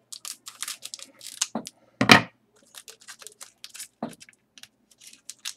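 Hockey trading cards being handled and slid against one another: a quick, irregular run of scraping and flicking, with one louder knock about two seconds in.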